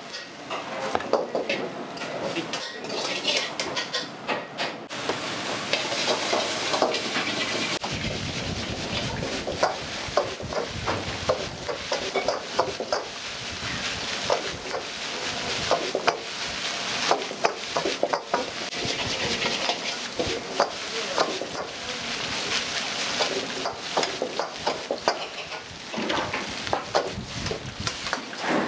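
Wok cooking: a metal ladle clanks and scrapes against a wok, with rapid knocks throughout, while food sizzles in hot oil. The sizzle thickens a few seconds in, and a low rumble joins about a quarter of the way in.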